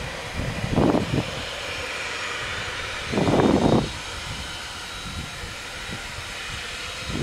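Boeing 737-900ER's CFM56-7B turbofans running at taxi power with a steady distant whine as the jet lines up on the runway for takeoff. Two short, louder low bursts of noise come about a second in and again around three seconds in.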